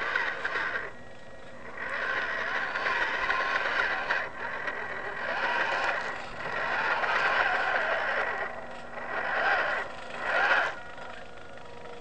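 Micro RC crawler's small electric motor and gearbox whining in several bursts with short pauses, the pitch wavering as the throttle is worked and the truck climbs over gravel and rocks.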